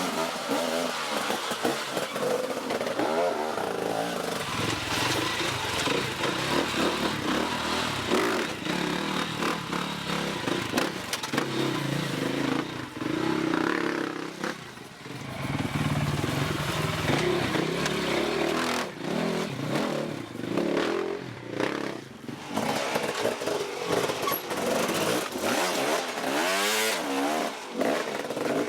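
Off-road motorcycle engine revving, its pitch rising and falling repeatedly as the throttle is worked, with some clatter.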